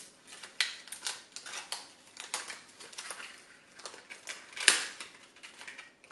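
Clear plastic blister packaging being pried open and handled: irregular crackles and clicks, with one sharper snap a little under five seconds in.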